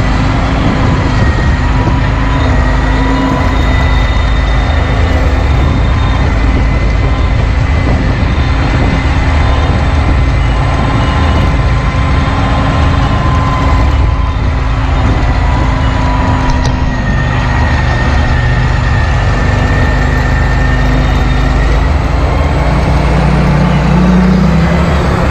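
John Deere 8430 tractor's six-cylinder turbo-diesel engine running under load as the tractor drives. A steady low rumble carries a thin, steady high whine over it, and the engine note rises a little near the end.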